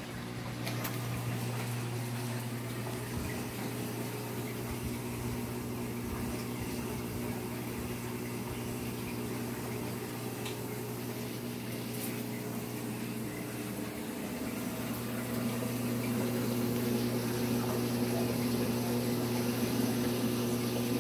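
Reef aquarium equipment running: a steady pump hum with the rush and trickle of circulating water, growing a little louder near the end.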